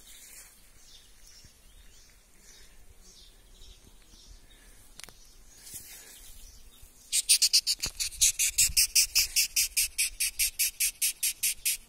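A large mottled fiddler beetle held between the fingers squeaking in a fast, even train of sharp chirps, about five a second, beginning about seven seconds in. It stridulates with its wing cases, not its mouth, as it does when it is handled.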